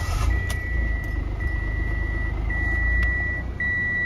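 A 2018 Mitsubishi Mirage's three-cylinder engine running just after it fires, cranked from a supercapacitor bank fitted in place of the lead-acid battery. It is a little louder at first and then settles toward idle. A dashboard warning chime beeps over it, about one long beep a second.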